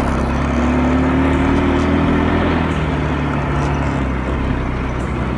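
ATV engine running under way, its note rising a little, then dropping about halfway through.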